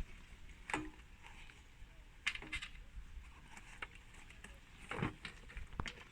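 A few scattered light clicks and rubbing sounds from handling a bicycle inner tube and tyre on the wheel rim.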